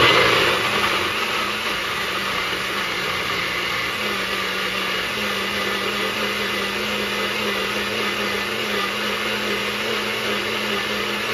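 NutriBullet personal blender running at full speed, puréeing chunks of roasted butternut squash and red pepper with sour cream and almond milk into a smooth sauce. It starts abruptly and is loudest at the very start, then runs as a steady whir. Its motor note steps up slightly about four to five seconds in, and it begins to die away at the very end.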